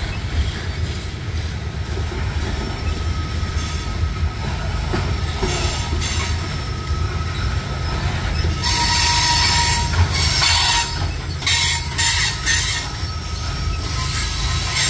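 Loaded coal cars of a freight train rolling past, their steel wheels rumbling steadily on the rails. About halfway through, high-pitched wheel squeal comes in for several seconds in repeated bursts.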